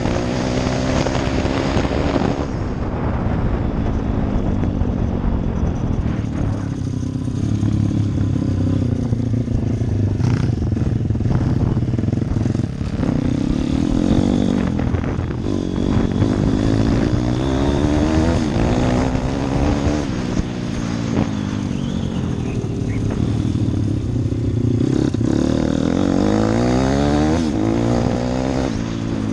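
Pit bike's small single-cylinder engine being ridden hard, its pitch rising and falling over and over as the throttle is opened and closed and it shifts through the gears.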